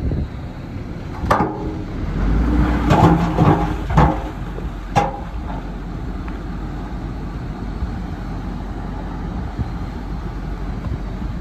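Dongfeng dump truck running steadily with its bed tipped, as rocks and dirt slide out. A few sharp metallic clanks and knocks sound between about one and five seconds in, as rocks strike the steel bed and tailgate, then only the steady engine rumble remains.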